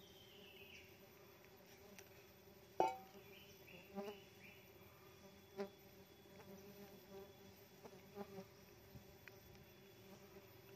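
Faint steady buzzing of Tetragonula laeviceps stingless bees swarming around their opened nest. A knife knocks sharply against the nest and pot a handful of times as honey pots are cut out, loudest about three seconds in.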